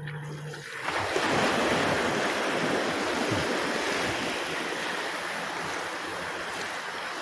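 Sea surf: a wave breaking and washing through shallow water, coming in suddenly about a second in, then slowly dying down.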